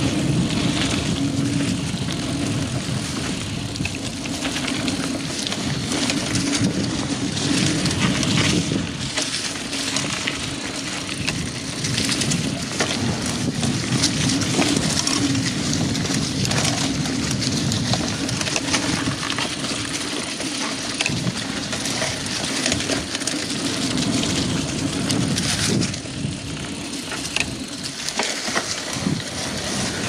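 A mountain bike, a 2000 Klein Attitude Race, ridden along dirt singletrack and heard from a chest-mounted camera: a steady rush of tyre and wind noise with frequent clattering knocks and rattles as the bike goes over rocks and roots.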